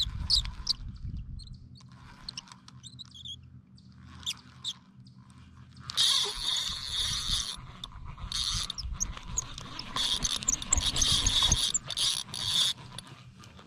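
Spinning reel being cranked to retrieve line, its gears giving a steady mechanical whirr in spells from about six seconds in, after a few light ticks and clicks.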